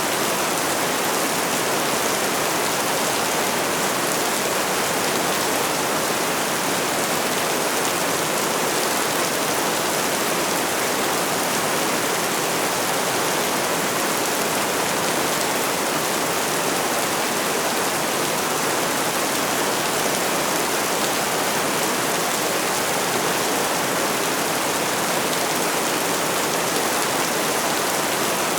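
Steady rainfall, an even, unbroken hiss with no single drops or other events standing out.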